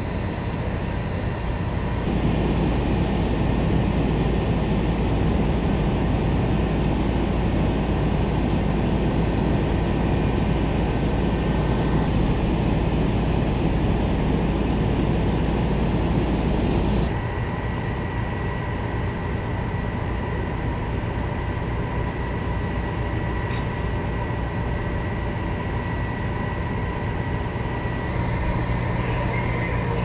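Fire trucks' diesel engines running: a steady low drone with a thin, constant high tone over it, louder from about two seconds in until it drops back abruptly around seventeen seconds.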